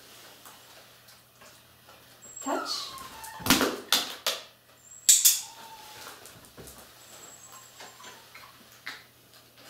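A dog whining in short, falling whimpers, with a few sharp clicks between them.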